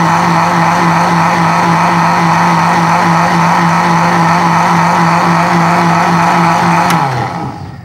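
Electric blender motor running steadily at full speed, grinding peeled oranges into pulp. About seven seconds in it is switched off with a click and winds down, its hum falling in pitch as it fades.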